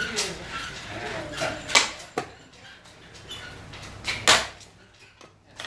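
Xiangqi pieces clacked down onto a wooden board, two sharp clacks, the first about two seconds in and the second about four seconds in, with a few lighter taps around them.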